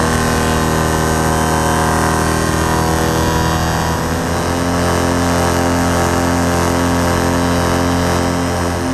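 Paramotor engine and propeller running steadily in cruising flight, a constant drone with no change in throttle.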